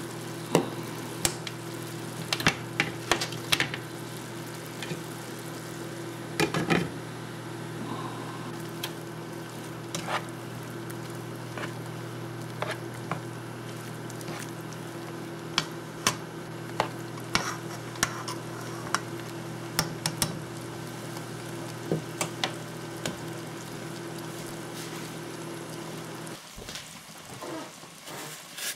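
Butter and chopped peppers, onions and mushrooms sizzling in a nonstick frying pan while a plastic spatula stirs them, with frequent clicks and scrapes of the spatula against the pan. A steady low hum runs underneath and cuts off near the end.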